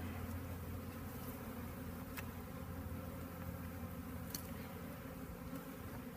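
A mass of honeybees buzzing, a steady low drone.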